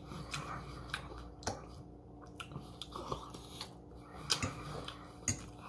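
A person chewing a mouthful of breakfast food close to the microphone, with scattered soft clicks and smacks from the mouth.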